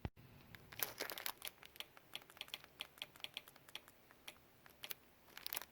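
Faint, irregular light clicks and taps from hands fitting the replacement speakers into a flat-screen TV, several a second with a quick cluster near the end.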